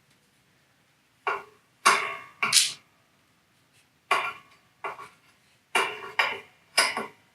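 Handling noise from a microphone pop filter's clamp being loosened and refitted on a mic arm: about eight sharp knocks and rattles in irregular succession.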